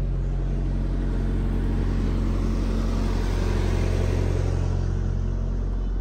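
Semi truck's diesel engine idling, a steady low hum that swells slightly in the middle.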